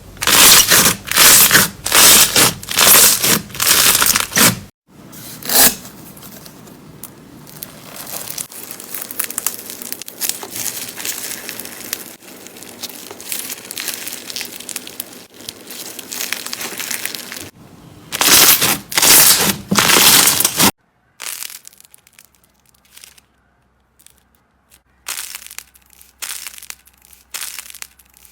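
Slime being squeezed and pressed by hand, crackling and crunching: a run of loud squeezes in the first five seconds, a quieter steady crackle through the middle, another loud run about two-thirds of the way in, then scattered softer crackles.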